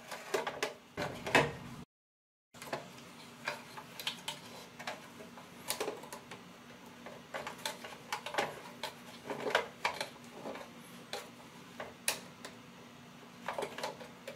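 Irregular metallic clicking and scraping as a flat-blade screwdriver bit turns the slotted stem of a shower mixer's cold-water inlet valve, opening it to let the water back through.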